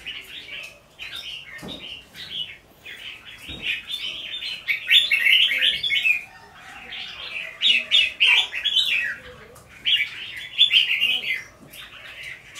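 Caged red-whiskered bulbuls singing in aggressive competition: rapid, chattering song phrases about a second long, one burst after another with short pauses between.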